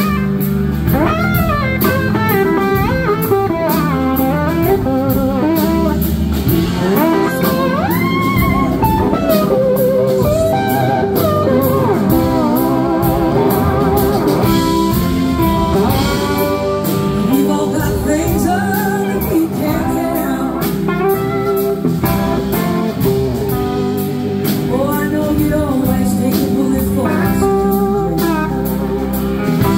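Live blues-rock band playing: an electric guitar lead on a red Gibson SG in long gliding, wavering slide notes over drums, bass and a second electric guitar.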